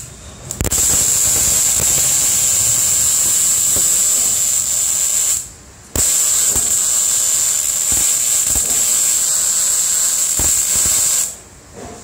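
MIG welding arc running in two beads, a steady, even sizzle with faint spatter pops, broken by a brief pause about halfway through and stopping about a second before the end.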